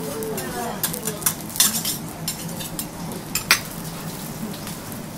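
Metal spatula scraping and clinking on a hot steel teppanyaki griddle, over a steady sizzle of fat frying on the plate. There are a few sharp metal clacks; the loudest come about a second and a half in and about three and a half seconds in.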